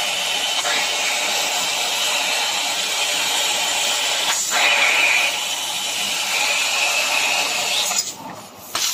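12 kW fiber laser cutting 25 mm carbon steel plate: a steady, loud hiss from the cutting head's gas jet blowing molten steel through the kerf. There is a short break about four and a half seconds in, and the hiss falls away sharply near the end.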